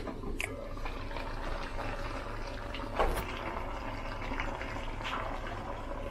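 Browned meat cooking in a pot on a gas stove, sizzling and crackling steadily. There is a sharp metallic knock about three seconds in, as the aluminium pot lid is handled.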